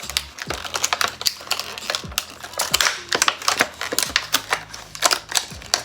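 Plastic packaging being handled and pulled open by hand, crackling in quick, irregular clicks.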